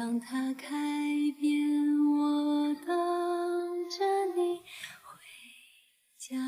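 Background music: a woman singing a slow song in long held notes, fading out about five seconds in, with a new note starting just before the end.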